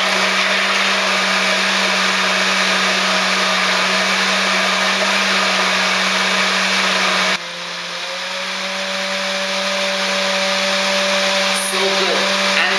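Countertop blender running at high speed, blending juice and frozen fruit into a smoothie: a steady motor whine over a low hum. About seven seconds in it suddenly drops in level and its note changes, then it slowly builds again.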